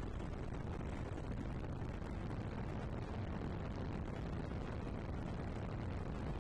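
Steady low rumble of an aircraft in flight, heard from on board, even throughout without any rise or fall.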